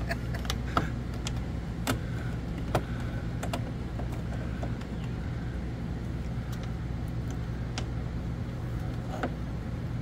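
Scattered small metal clicks and scrapes as the screws and old latch of a camper's entry door are worked loose with a screwdriver, over a steady low hum.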